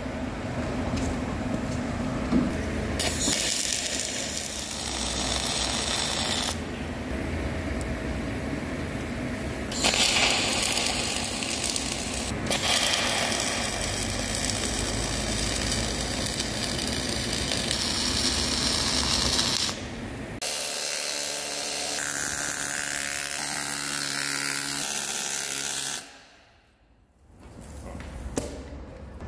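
MIG welding arc crackling and hissing as steel joints are tack-welded, in several stretches broken by sudden cuts. There is a brief drop to near silence near the end.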